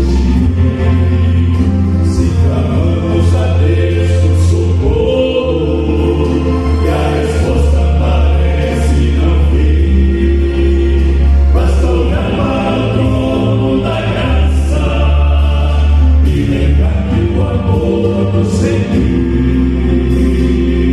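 Vocal quartet singing a gospel hymn in harmony, with chords held for a second or more over a deep bass line.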